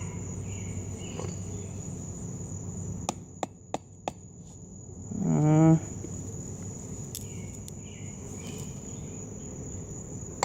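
A steady high-pitched cricket trill with a low background hum. Three sharp clicks come about three to four seconds in, as pliers work at a plastic battery-pack casing, followed by a short voiced sound.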